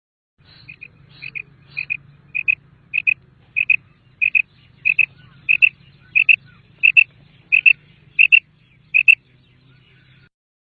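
Common quail calling: a rapid series of about fourteen paired high notes, one pair every half second or so, growing louder over the first few seconds.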